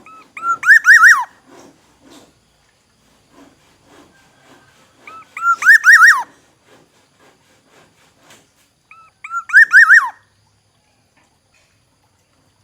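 Black-naped oriole whistling three short phrases about four seconds apart, each a quick run of arching, fluty notes that ends in a falling slur.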